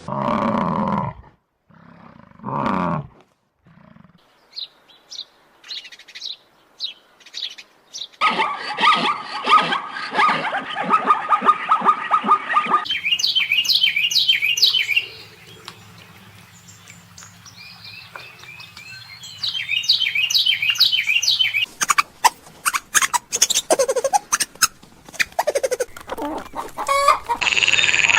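A string of separate animal recordings, mostly birds chirping in quick repeated high notes, with dense chirping in the middle and a rapid run of clicking calls near the end.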